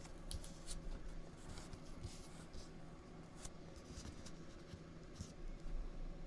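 Faint rustling and scraping of trading cards being handled and sorted by hand, in short irregular strokes over a low steady hum.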